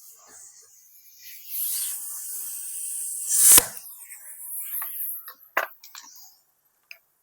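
Scraping and knocking of woodworking handling: a hissing scrape, then a sharp knock about three and a half seconds in, followed by a few lighter taps.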